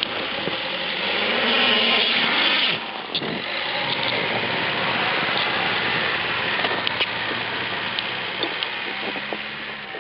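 Fiat Panda 4x4 engine revving hard as its tyres spin and churn through deep snow, loudest in the first few seconds, then fading as the car pulls away.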